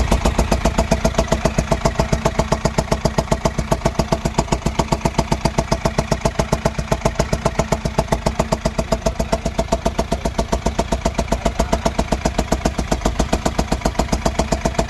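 The engine of a makeshift jugaad car idling with an odd, even chugging beat of several pulses a second.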